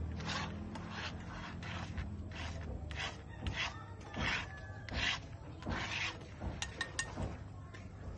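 A series of short scraping strokes, some spaced close together, with a few faint high chirps in the second half.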